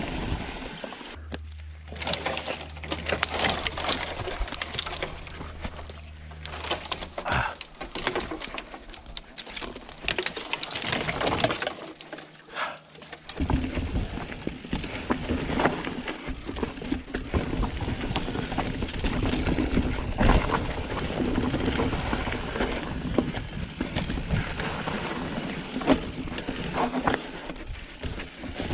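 Downhill mountain bike riding over rough trail: tyre noise on dirt and rock with frequent irregular knocks and clatter from the bike's chain and frame over bumps.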